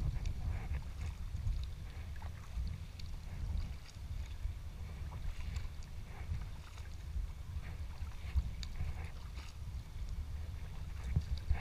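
A sea kayak being paddled: small splashes and water lapping at the hull, over a steady low rumble.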